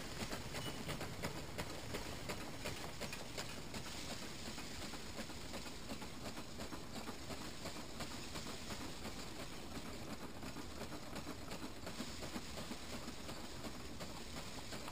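Old Butterworth threshing machine, driven by mules, running: a steady mechanical rattle full of small quick clicks.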